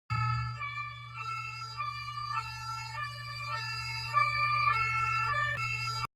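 Electronic emergency alert alarm tone: a buzzy, siren-like stack of tones that jumps between pitches every half second or so over a steady low hum, cutting off abruptly.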